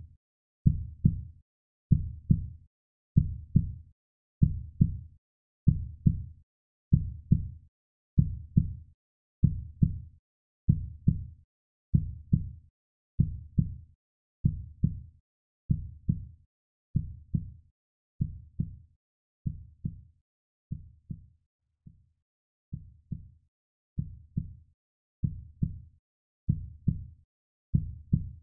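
Heartbeat sound effect: a steady low double thump, lub-dub, at about 75 beats a minute, dropping fainter for a few beats about two-thirds of the way through before returning.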